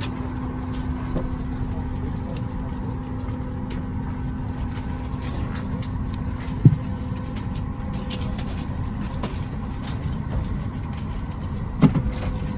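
Steady cabin rumble and hum inside a parked Boeing 737-800 before pushback, with the aircraft's ventilation running. A low hum cuts out about halfway in at a short thump, and a second, louder thump comes near the end.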